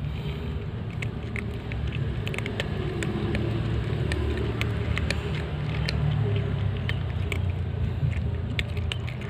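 Two cats crunching dry kibble, a scattering of irregular short crisp clicks, over a steady low rumble.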